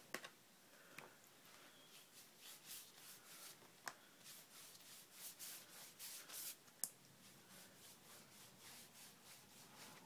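Faint rubbing and brushing of a watercolour brush working over wet paper, a run of soft strokes through the middle, with a few sharp clicks, the loudest about four and seven seconds in.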